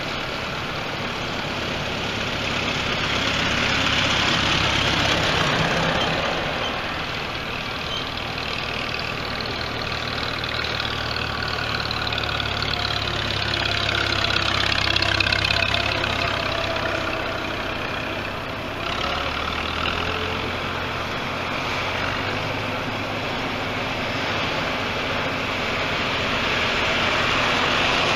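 Engines of a procession of vintage farm tractors running as they drive past one after another, the sound swelling as each tractor comes close, with engine pitch sliding as they go by.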